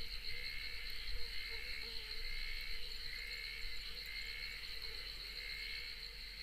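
Chorus of insects: a steady high buzz with a lower chirp repeating over and over, and a faint lower wavering call beneath.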